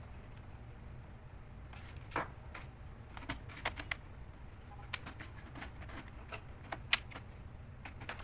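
Scattered light clicks and taps of a laptop being handled during reassembly, irregularly spaced, over a steady low hum.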